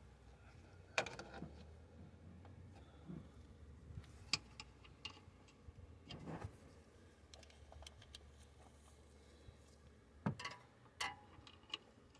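Scattered faint clicks and clinks of hand tools and metal parts being handled, about five sharper ones at irregular intervals, over a low steady hum.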